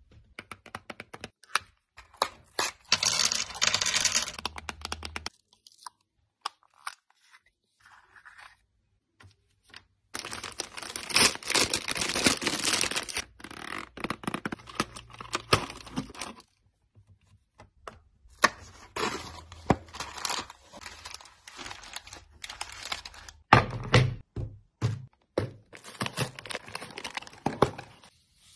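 Crinkling and rustling of plastic candy packaging as it is handled and torn open, in bursts separated by pauses. A few sharp knocks come in among them, the loudest late on.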